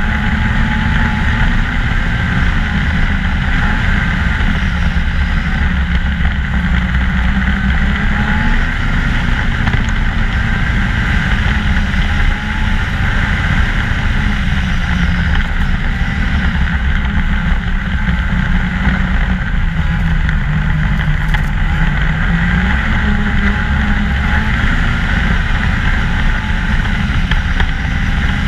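2014 Ski-Doo MXZ 600 snowmobile running at a steady trail cruise, its engine and track giving a continuous drone whose pitch rises and falls gently with small throttle changes.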